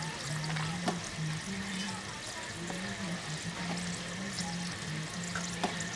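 A low tune of held, stepping notes plays over steady street-stall background noise. A plastic spatula clicks sharply twice on a stainless-steel tray, about a second in and near the end, as sticky rice is scooped into a paper bowl.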